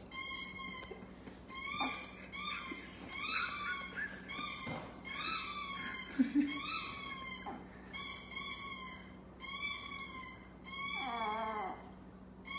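A chihuahua howling in a string of short high-pitched calls, about one a second, mixed with the high peeping of ducklings. Near the end one call slides down into a lower whine.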